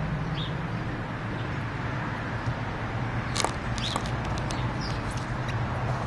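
Bichon Frise puppy chewing on a foam clog: a scatter of small sharp clicks and taps, thickest from about halfway in, over a steady low outdoor hum.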